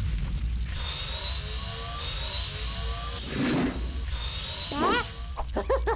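Cartoon super-speed running sound effect: a steady high whirring whine that rises in pitch in repeated sweeps over a low rumble, with a whoosh about halfway through. Near the end come a few high, squeaky cartoon-chick chirps.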